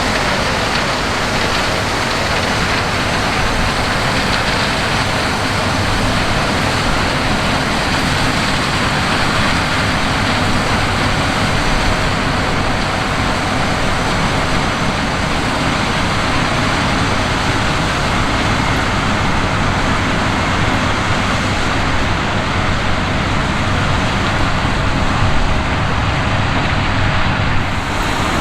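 John Deere X9 1000 combine running steadily while harvesting corn: a constant low engine hum under a dense, even mechanical noise.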